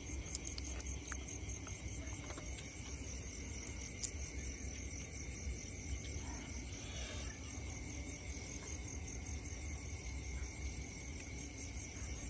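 Crickets and other insects trilling steadily in a night chorus, one pulsing in a fast even rhythm. A few sharp clicks come through, near the start and about four seconds in.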